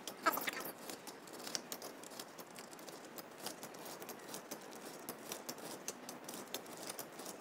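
Paper cupcake cases rustling and tapping as they are peeled off a stack and pressed one by one into the cups of a metal muffin tray: a scatter of small light clicks and crinkles.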